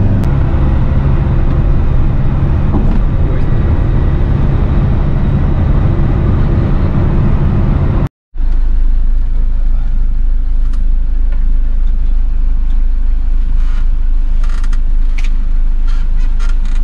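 Motorhome driving, heard as a steady engine and road drone. It drops out for a split second about eight seconds in, then returns as a lower, steadier drone with a few faint clicks near the end.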